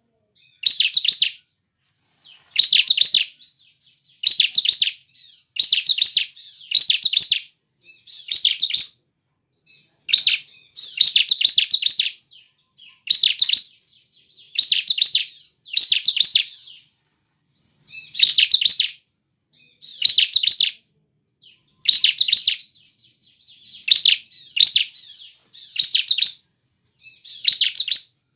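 Bar-winged prinia (ciblek) singing: short, rapid, high-pitched trilled phrases repeated about every second and a half, with softer chatter between them.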